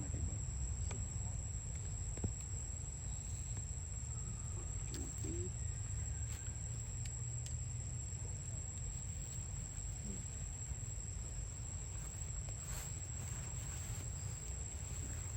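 Insects, likely crickets, giving a steady high-pitched drone, over a constant low rumble and a few faint ticks.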